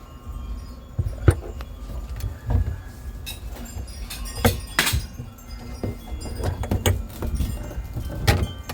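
Adjustable wrench clinking against a metal supply-line nut on a shut-off valve: several sharp metallic clicks and knocks with handling noise between them, as the wrench keeps slipping off the nut.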